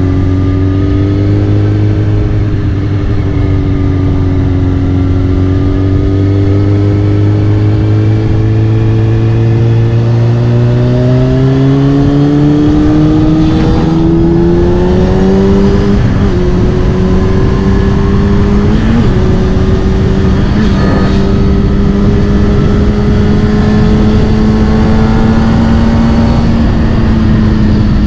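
Kawasaki Ninja ZX-6R inline-four engine running through a Scorpion titanium exhaust while riding. The engine note climbs slowly and steadily for about the first half, then holds a nearly even cruise and eases off slightly near the end.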